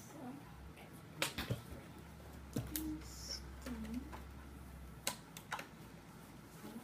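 Scissors snipping through the plastic ties and strings that hold a boxed fashion doll, with a handful of sharp clicks and the rustle and knock of the cardboard-and-plastic packaging being handled.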